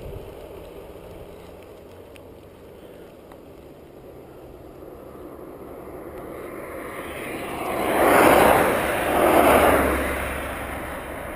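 Car traffic passing close on the crossing road, with tyre and engine noise swelling to two loud peaks about eight and nine and a half seconds in, then fading. Before that there is only low, steady rolling noise from the bicycle.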